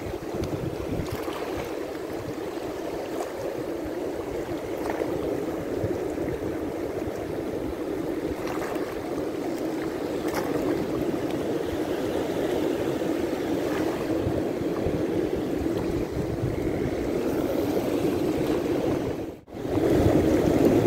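Shallow sea water washing and lapping over a rocky reef flat, with wind blowing on the microphone. The sound cuts out abruptly for a moment near the end.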